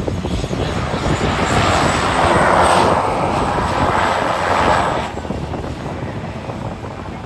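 Aircraft passing low overhead with a loud engine rush and a thin high whine. The noise builds from about a second in, is loudest in the middle, and drops off sharply about five seconds in, over a low rumble of wind on the microphone.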